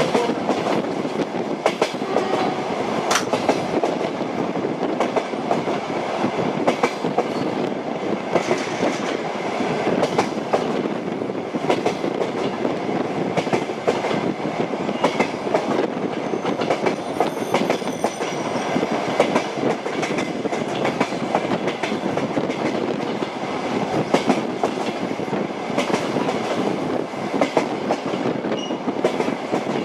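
Train wheels clacking over rail joints: sharp clicks every second or two over the steady rumble of a moving railway carriage.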